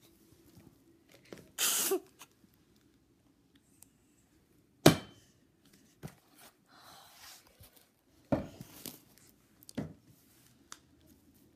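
Scattered rustling and handling noises in a small room, with a sharp knock about five seconds in and short rustles around two and nine seconds in.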